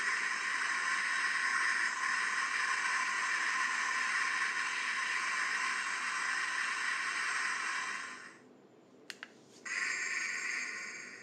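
Hissing sound effect from a bootleg Ultraman Taro badge toy, steady for about eight seconds, then cutting off. After a couple of clicks, a second, shorter hiss starts and fades away.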